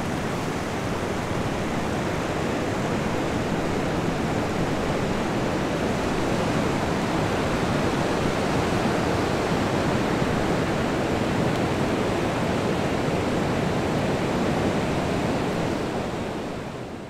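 Ocean surf breaking and washing onto a sandy beach, a steady rushing wash that fades out near the end.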